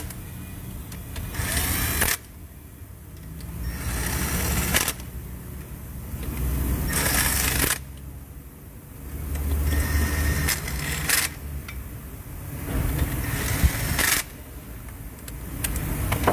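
Cordless power driver running cylinder-head bolts down in five short bursts of about a second each, snugging them before they are torqued.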